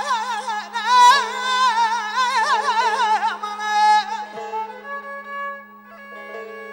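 Azerbaijani mugham singing: a male vocalist's ornamented, melismatic line with rapid warbling trills, ending about three and a half seconds in. A kamancha carries on with held bowed notes.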